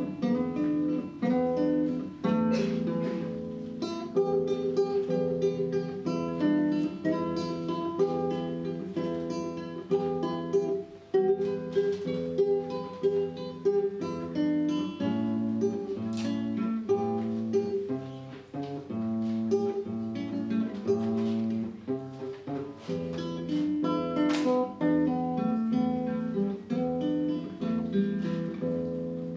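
Solo nylon-string classical guitar: a steady run of picked notes over a bass line, with the bass going deeper about halfway through.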